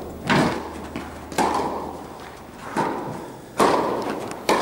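Tennis ball being struck by rackets and bouncing on an indoor court during a rally: five sharp hits about a second apart, each echoing in the hall.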